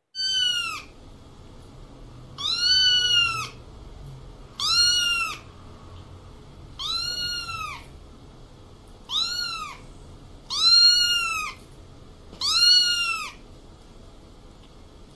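A kitten meowing seven times, one high call about every two seconds, each rising and then falling in pitch.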